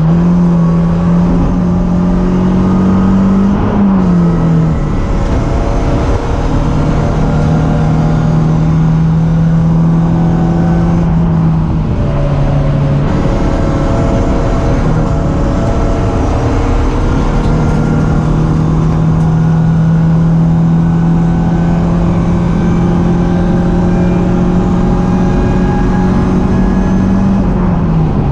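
BMW 318ti Cup race car's four-cylinder engine running hard at high, nearly steady revs. The engine note drops briefly about four seconds in, again around twelve seconds, and once more near the end.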